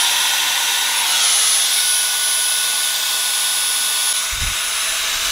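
Dyson V7 Motorhead's handheld motor unit running with its cyclone and bin removed: a steady high-pitched whine over a rush of air. A brief low bump about four and a half seconds in.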